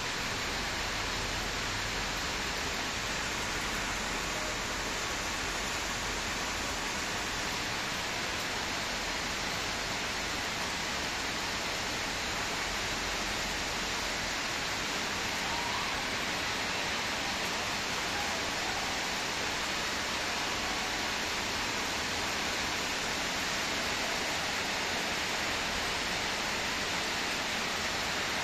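Steady rainfall, a dense even hiss without let-up.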